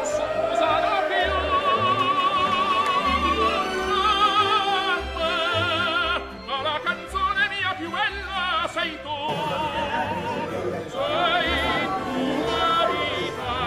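Operatic singing with wide vibrato over orchestral accompaniment, with a brief dip about six seconds in and an abrupt change a few seconds later.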